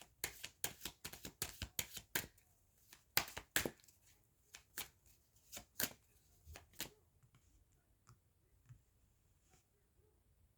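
Tarot cards being handled and shuffled: a run of quick, irregular card clicks and flicks that thins out after about seven seconds into a few faint taps.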